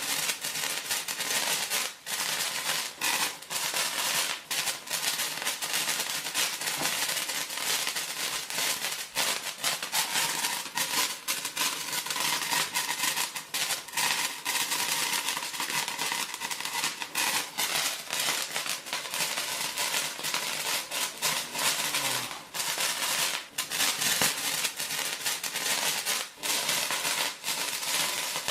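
A sparkler burning, a dense continuous fizzing crackle with many sharp little pops.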